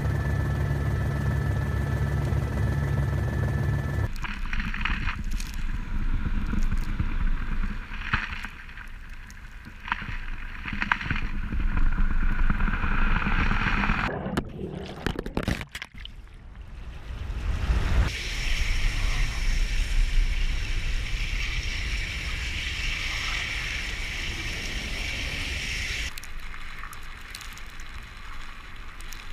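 A helicopter's steady drone for the first four seconds. Then it changes suddenly to wind buffeting a microphone on the ice, with the crunching and rumble of the icebreaker USCGC Polar Star as its hull pushes through the sea ice. From about 18 to 26 seconds the ship's machinery adds a steady higher-pitched hum.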